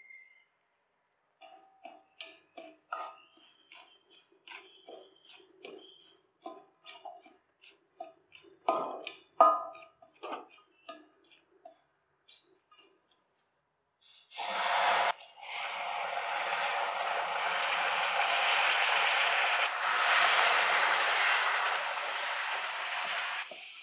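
A wooden spatula knocking and scraping against a steel bowl as dry ground rice powder is mixed, in short irregular strokes with one sharper knock about nine seconds in. From about fourteen seconds comes a steady, louder hiss of hot jaggery syrup being poured into the bowl.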